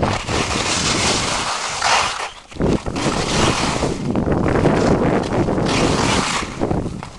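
Loud wind rushing over the microphone of a handheld camera and skis sliding and scraping over snow while skiing downhill, easing off briefly about two seconds in.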